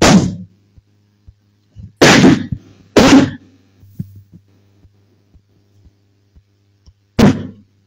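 A man's short, loud vocal bursts shouted straight into a handheld microphone, four of them: one at the start, two close together about two and three seconds in, and one near the end. A steady low electrical hum runs underneath.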